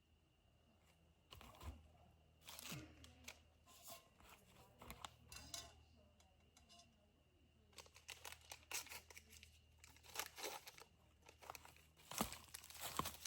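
Plastic food wrapper crinkling and tearing as it is opened by hand: scattered soft rustles that come faster and louder near the end.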